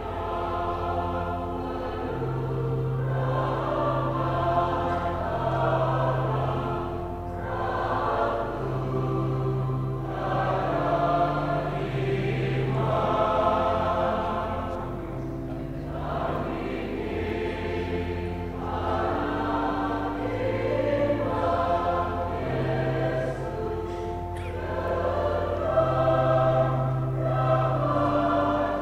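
A choir singing a hymn in unison over held bass notes from an instrumental accompaniment: the closing hymn after the Mass dismissal.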